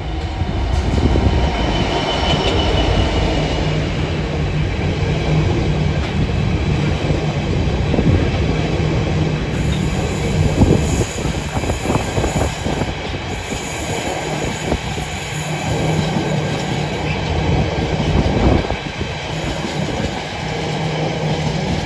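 Class 66 diesel-electric freight locomotive, with a two-stroke EMD V12 engine, passing close by at the start, followed by a long rake of intermodal flat wagons, mostly empty, rumbling and clattering along the rails. Wheels knock over rail joints, and from about halfway there are stretches of high-pitched wheel squeal.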